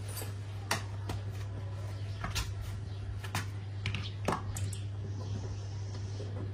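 Steady low electrical hum, with scattered light clicks and taps over it.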